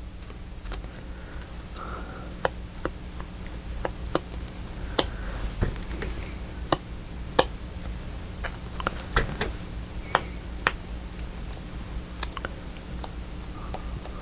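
Light, irregular taps and clicks of hands working with paper and small craft tools on a table, a dozen or more spread through, over a steady low hum.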